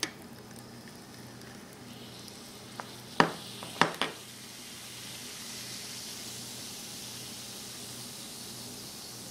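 Baking soda reacting with citric acid and water in a test tube: a steady fizzing hiss of carbon dioxide bubbles that builds a few seconds in. A few sharp clicks come near the start and around three to four seconds in.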